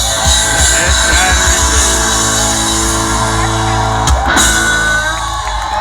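Live band playing amplified rock music, ending on a held chord shortly before the end.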